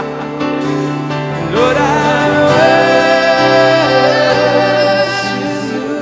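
Slow contemporary Christian worship music: a singer's voice glides up about one and a half seconds in and holds a long high note over sustained chords.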